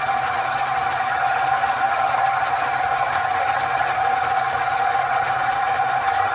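Atlas 618 metal lathe running steadily with a steady whine, its tool taking a turning cut on the end of a small metal shaft.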